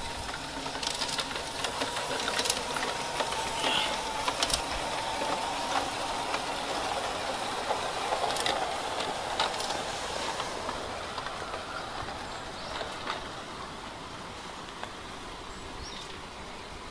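LGB garden-scale model train, a Corpet-Louvet 0-3-0 tank locomotive pulling coaches, running on its track: a steady mechanical running sound with a faint motor whine and scattered clicks of the wheels over the rail joints. It gets quieter in the second half as the train moves away.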